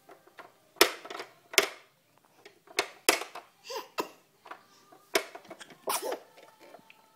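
Plastic clicks and snaps of a toddler's pop-up animal toy as its buttons are pressed and its spring-loaded doors pop and shut, several sharp clicks at irregular intervals.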